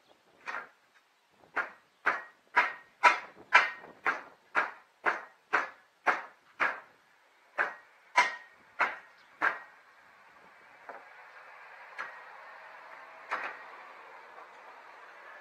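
Hammer striking about two blows a second, some sixteen blows in all, each with a short metallic ring as on a nail driven into or knocked out of old wooden roof boards. The blows stop about two-thirds of the way through and a steady rushing sound of a passing truck takes over.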